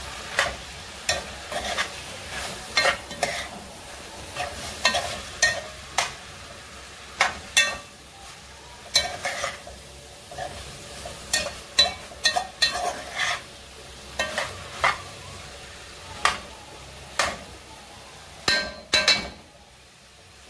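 A slotted spatula stirring, scraping and tapping against a frying pan in irregular strokes, about one or two a second, with a steady sizzle of food frying underneath. The strokes stop near the end.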